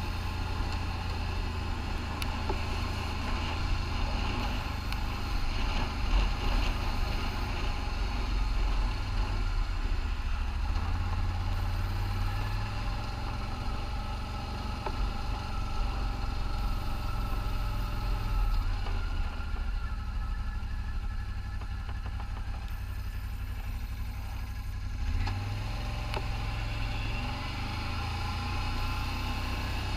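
ATV engine running at low riding speed, its low note steady apart from two short rises in pitch, one about a third of the way through and one near the end.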